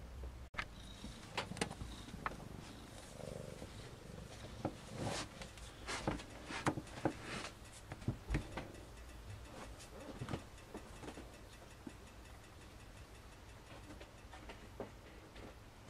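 Cat purring, a low steady hum, with scattered soft clicks and rustles that are busiest in the first half and thin out later. The sound cuts out briefly about half a second in.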